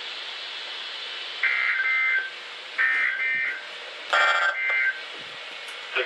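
Three bursts of Emergency Alert System SAME header data, the buzzy two-tone digital warble that opens an alert. Each burst lasts under a second, with about half a second between them, and the third sounds harsher.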